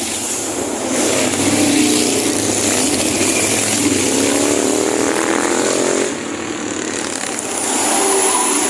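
A large bus passing close by, its engine running loudly, rising in pitch as it accelerates about four seconds in and dropping away at about six seconds.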